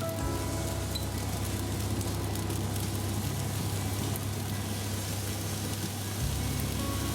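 Fried rice sizzling steadily in a hot oiled pan, over a continuous low hum.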